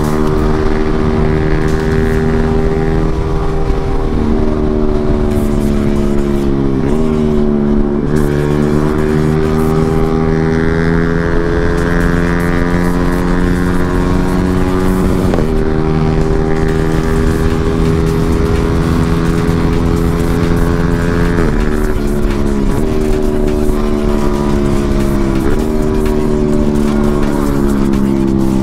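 Motorcycle engine running on the road at a fairly steady speed. Its pitch creeps slowly upward and dips sharply and briefly about four times as the throttle is eased and reopened, over a constant low rush of riding wind on the microphone.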